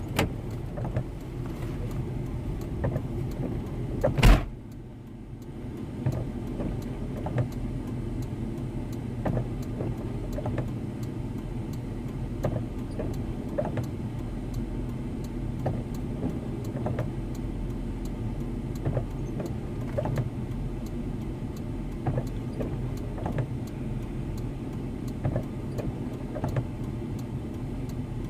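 A car door slams shut about four seconds in. Then the vehicle's steady idling hum comes from inside the cabin, with faint scattered ticks.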